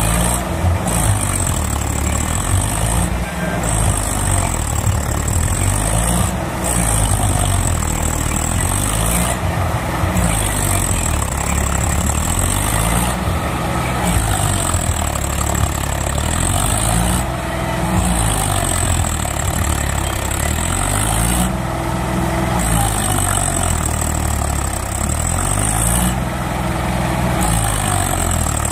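Swaraj 855 FE tractor's three-cylinder diesel engine labouring under load, its pitch rising and falling again and again about every four seconds, as it strains to haul a loaded trailer out of deep mud.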